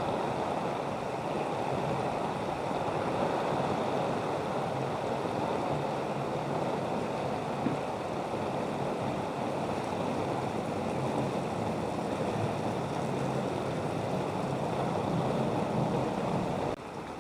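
Steady rushing, splashing noise of floodwater, which cuts off suddenly near the end.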